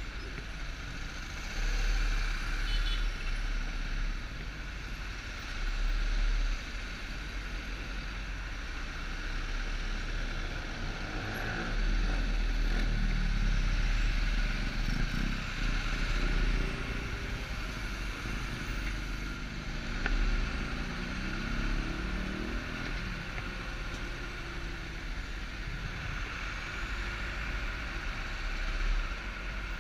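Motorcycle engine running in city traffic, with wind buffeting the mounted camera's microphone in uneven low rumbles. From about twelve seconds in, the engine note rises several times as the bike accelerates.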